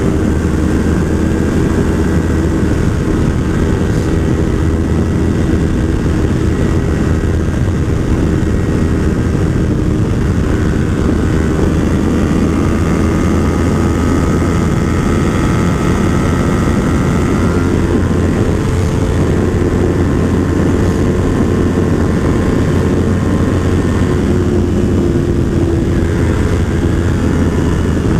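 Yamaha R3's parallel-twin engine running steadily at high speed in sixth gear, around 150 to 160 km/h, under heavy wind rush.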